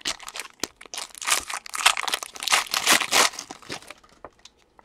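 Trading-card pack wrappers crinkling and rustling in the hands, in a run of bursts for about three seconds, with a few short clicks from cards being handled.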